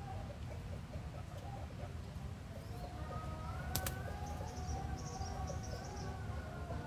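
A rooster beating its wings hard about four seconds in: a sharp click, then a short burst of feather flapping. Faint distant bird calls run underneath.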